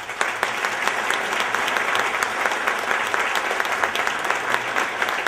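Theatre audience applauding, a dense, steady mass of handclaps that swells up just as the stage goes dark.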